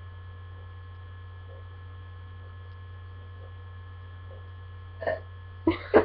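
Steady low electrical mains hum in the recording, with faint steady higher tones above it. A short voice sound comes about five seconds in, and a voice starts near the end.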